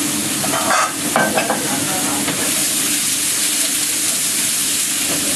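Vegetables stir-frying in oil in a frying pan, a steady sizzle, with a few short knocks and clinks of the pan about a second in.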